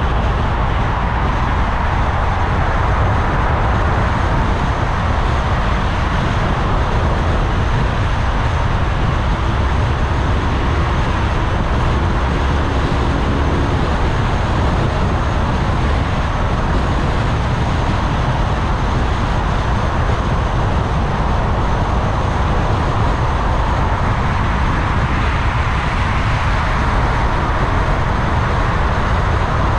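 A car driving in city traffic: steady road noise with a low rumble of tyres and engine.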